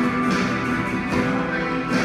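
Several acoustic guitars strummed together in a steady rhythm, playing chords as a group.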